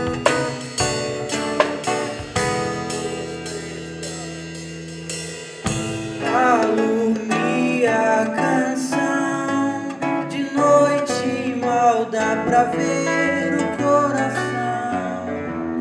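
A song played on a nylon-string classical guitar, with sharp plucked and percussive strokes for the first few seconds; a singing voice comes in about six seconds in over the guitar chords.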